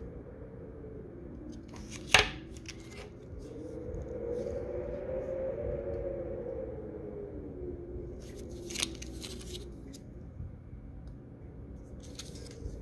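Clear plastic coin flips crinkling and clicking as they are handled, with a sharp crackle about two seconds in and further crackles near nine seconds and near the end. Under them runs a steady low hum that swells and rises slightly in pitch in the middle.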